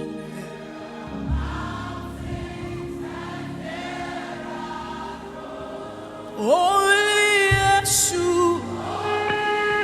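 Gospel worship music: a sustained keyboard pad under soft choir singing, with a lead voice coming in strongly about six and a half seconds in and the music swelling louder.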